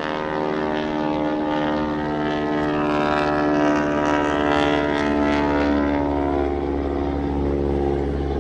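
Propeller-driven Boeing Stearman biplanes' radial engines droning past in an opposition pass. The engines swell to their loudest about halfway through, then ease off.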